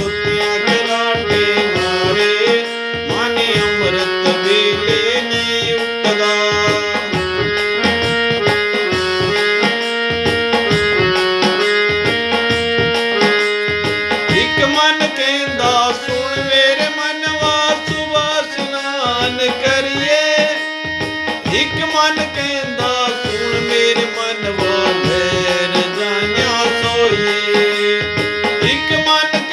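Punjabi devotional bhajan music: tabla keeping a steady rhythm under a held, shifting melody line.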